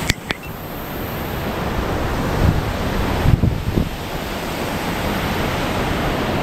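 Steady rushing noise of wind on the microphone and flowing river water, with a sharp click right at the start and a few dull knocks about three to four seconds in.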